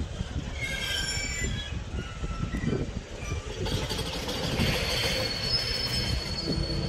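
Container flat wagons of a freight train rolling past, their steel wheels giving a steady low rumble on the rails. Short high-pitched wheel squeals come about a second in, and a steady high squeal begins about five seconds in.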